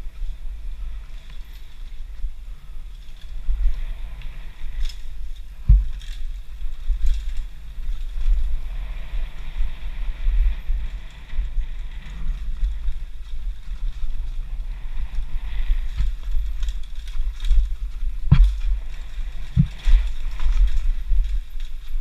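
Downhill mountain bike running fast down a dirt forest trail, heard from a GoPro on the bike or rider: a steady low rumble of the ride on the mic, broken by sharp knocks as the bike hits bumps, one about six seconds in and two near the end.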